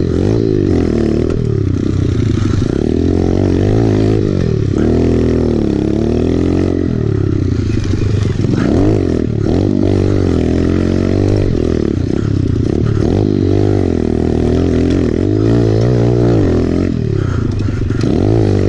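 Kawasaki KLX pit bike's single-cylinder four-stroke engine, heard from the rider's own bike, revving up and easing off again and again as the throttle is worked through the turns of a dirt track.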